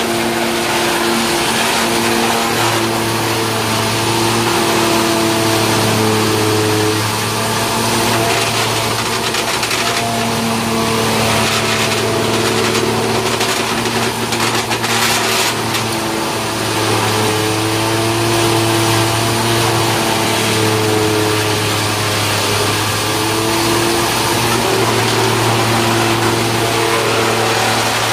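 Belt-driven wood sawdust machine (wood crusher) running steadily, a constant machine hum under a dense grinding hiss as wood is crushed into sawdust. The hum's pitch dips slightly a few times, with some short crackles around the middle.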